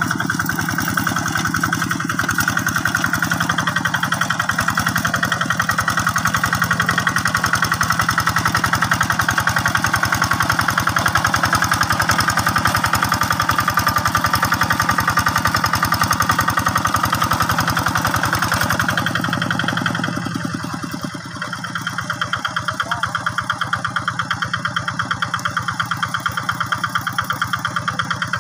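Quick G600 hand tractor's single-cylinder diesel engine running steadily under load as it drags cage wheels and a harrow through paddy mud, with a fast regular firing beat. About 20 s in the sound changes and drops a little, and the individual firing beats stand out more clearly.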